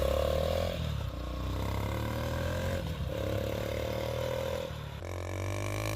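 Motorcycle engine running through a tractor's exhaust silencer fitted in place of its own: a steady low exhaust note whose character shifts about a second in, around the middle and again near the end.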